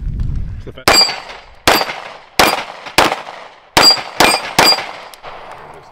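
Seven pistol shots fired in quick succession at steel targets, in an uneven rhythm with a short pause after the fourth. Several of the shots are followed by a faint metallic ring from steel plates being hit.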